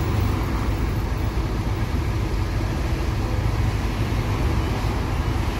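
Steady low rumble of a Mercedes-Benz intercity bus's diesel engine idling, with road traffic passing.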